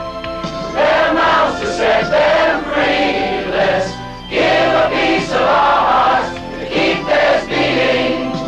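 Large mixed choir of men and women singing together in phrases.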